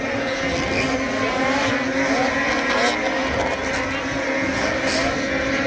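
Racing snowmobile engines running steadily together on the track, blended into one even drone with no single pass-by standing out.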